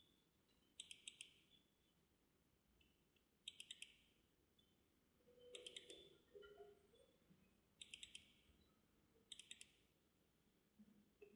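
Faint computer mouse-button clicks in quick double-click groups, five groups about every two seconds, as drives and folders are opened in a file browser.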